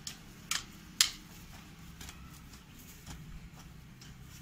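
Hand hoe striking and scraping through stony soil: three sharp knocks in the first second, the third the loudest, then fainter taps and scrapes.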